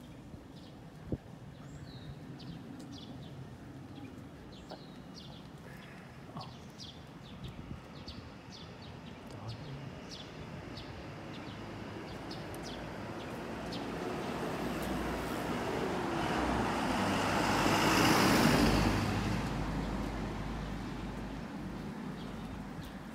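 Footsteps on pavement, about two a second, while a car approaches and passes close by, swelling to its loudest about three-quarters of the way through and then fading away.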